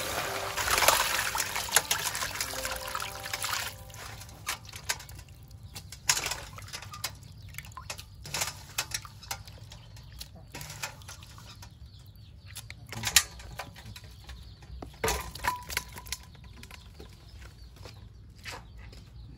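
Water pouring into a steel basin of shelled snail meat for about four seconds. Then come scattered splashes and clicks as the pieces are washed.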